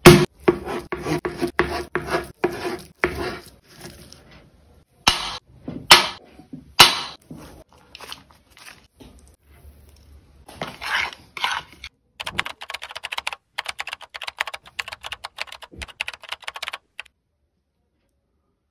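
Close-up food-preparation handling sounds: a string of small taps and clicks, three sharp knocks around five to seven seconds in, then a rapid crackling run from about twelve to seventeen seconds, as spices and a marinade are worked on a disposable plate.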